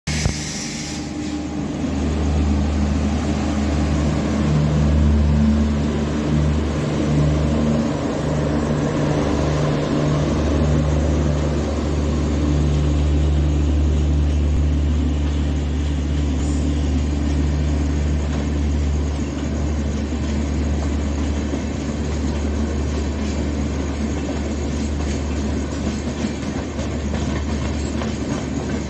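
Electric passenger train rolling past at a steady pace: a continuous low rumble of coach wheels on the rails with a steady low hum, easing slightly in the last part.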